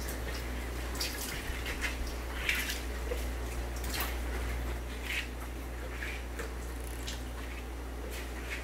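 Water dripping and splashing lightly in scattered drops, roughly one a second, over a steady low hum.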